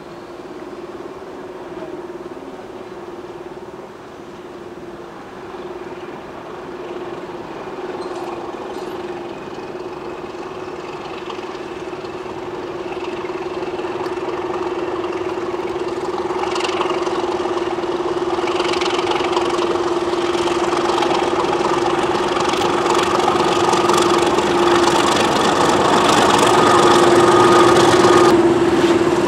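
Class 31 diesel-electric locomotive's English Electric V12 engine running at a steady note as it hauls its train toward the listener and passes close by. The sound grows louder throughout, loudest near the end.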